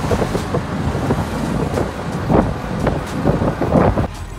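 Auto-rickshaw ride heard from inside the open passenger cabin: the small engine running under road rumble, with wind buffeting the microphone. The noise cuts off abruptly near the end.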